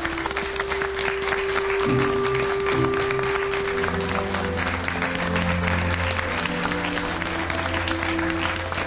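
A crowd applauding over background music with long held notes; a deeper bass line comes in about four seconds in.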